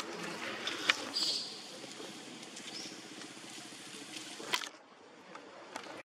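Steady outdoor background noise with a few sharp clicks and a brief high squeak about a second in; the sound cuts off suddenly at the very end.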